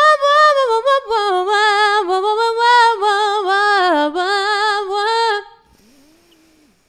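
A woman singing a melodic phrase with vibrato on "wah" syllables, a vowel-bed exercise meant to give her voice more bass and depth. The singing stops about five seconds in, followed by a brief faint low note.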